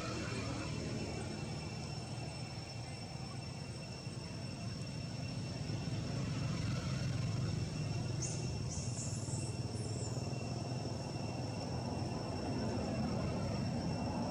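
Outdoor background noise: a steady low rumble with faint, steady high-pitched tones above it, and a brief high chirping sound about eight seconds in.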